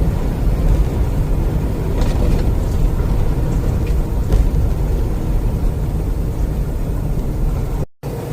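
Semi-truck engine and road noise heard from inside the cab while driving, a steady low rumble. The sound cuts out briefly near the end.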